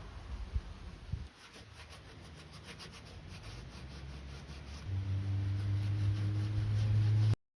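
Quick repeated rubbing strokes on wood, as when working filler on siding by hand. About five seconds in a steady low hum starts, grows louder, and then cuts off suddenly.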